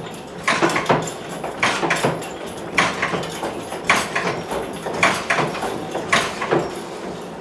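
Large leather forge bellows pumped by hand with its overhead lever, blowing the forge fire. There is a steady stroke about once a second, each a noisy rush with creaking.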